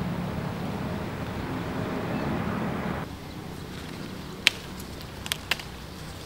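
A steady rushing noise with a low hum stops abruptly about three seconds in. Then come a few sharp snaps as green fruit is pulled by hand from the branches, its stems breaking, the first snap the loudest.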